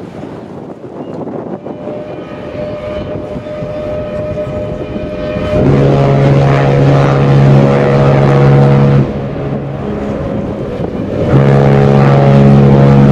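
A large ship's horn sounding two long, steady, deep blasts. The first starts about a third of the way in and lasts some three seconds; the second starts near the end. A fainter, higher horn tone builds under wind noise before the first blast.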